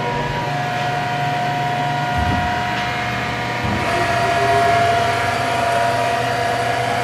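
Atrump CNC vertical mill running an automatic tool touch-off: a steady electric whine of several held tones over a low hum, with a brief low rumble about two seconds in and one tone growing louder about four seconds in.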